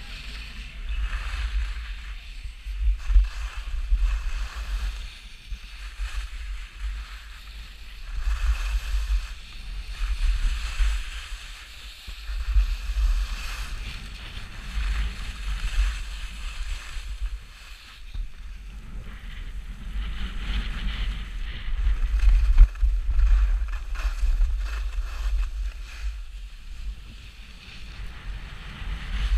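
Skis turning down a groomed piste, the edges hissing and scraping over the snow in waves with each turn, under heavy wind rumble on the action camera's microphone.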